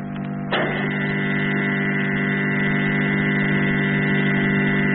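Radio-drama sound effect of a spaceship's main door being opened by its mechanism: an electric hum that builds up, jumps to full strength about half a second in, then holds steady.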